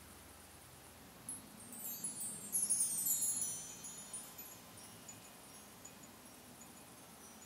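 High, tinkling chimes: a cascade of small metallic tones that starts about a second in, slides downward in pitch as it peaks, and fades out a few seconds later.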